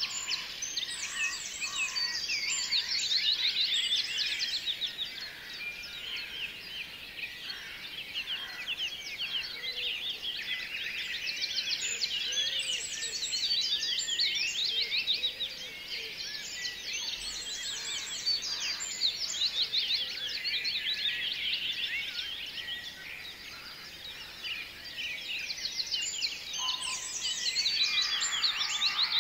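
A dense chorus of small birds chirping and twittering in rapid, high-pitched bouts that swell and ease every few seconds.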